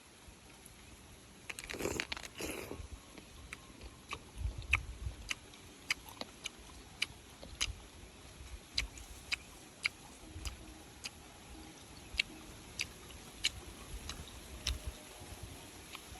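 A crisp crunch about two seconds in, then a long, irregular run of sharp clicks and snaps, roughly two a second, with a few soft low thumps.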